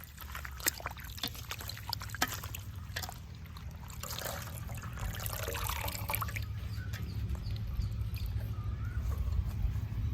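Hands rinsing mullu murungai (Indian coral tree) leaves in a basin of water, turning them over: splashing, trickling and dripping, over a low steady rumble. The splashes come in scattered sharp bits at first and turn into a continuous swishing about halfway through.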